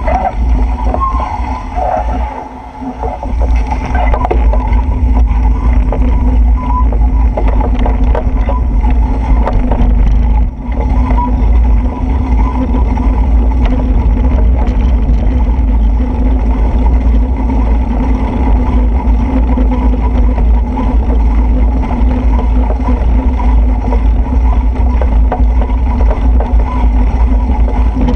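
Loud, steady rumble of wind and road noise on a moving camera's microphone in the rain, with traffic running on the wet road alongside; it dips briefly a couple of seconds in.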